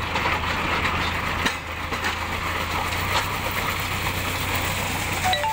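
Tractor engine running steadily while driving a post-hole earth auger, with gravel rattling off the spinning flight. There is one sharp click about a second and a half in, and a short two-note electronic chime near the end.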